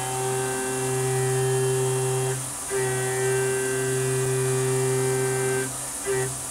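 Background music: held organ-like synth chords that change twice.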